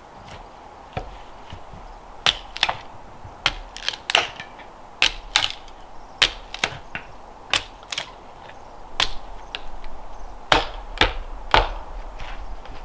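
A series of sharp clicks and snaps at irregular intervals, about a dozen in all, some in quick pairs, with the loudest cluster near the end.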